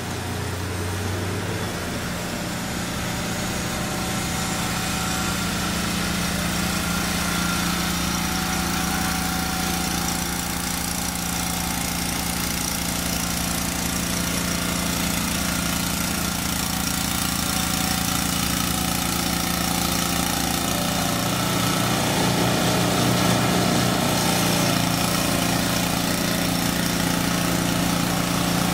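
Snow blower engine running steadily while clearing deep fresh snow, growing gradually louder as the machine comes closer.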